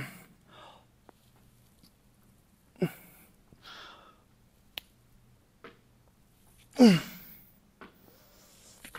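A man's forceful straining exhales during dumbbell shoulder press reps. There are three short grunts, each falling in pitch with a breathy hiss, and the loudest comes about seven seconds in. A light click is heard midway.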